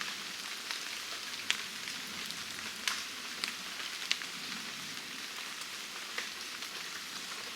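Steady rain falling on surrounding foliage: an even hiss, with a few sharper drop ticks a second or so apart.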